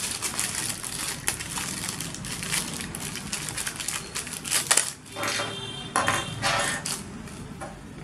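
Thin clear plastic bag crinkling and rustling as it is opened by hand, with a few short clicks as the plastic camera mounts inside knock together.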